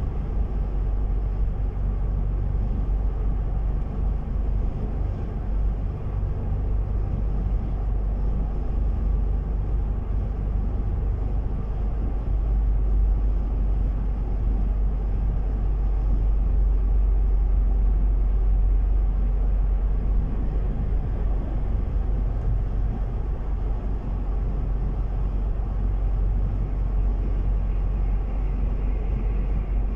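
A car driving on the road: a steady low rumble of engine and tyre noise.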